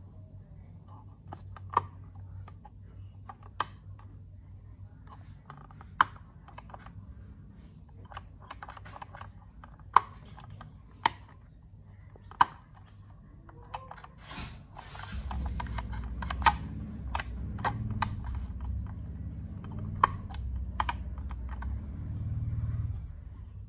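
Sharp plastic clicks at irregular intervals, about a dozen, from a toy RC helicopter transmitter's control sticks being worked with the thumbs. A low rumble joins about two thirds of the way through.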